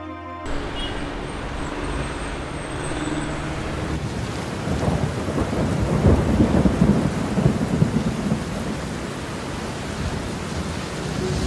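Steady rain, with a low rumble of thunder swelling for a few seconds in the middle.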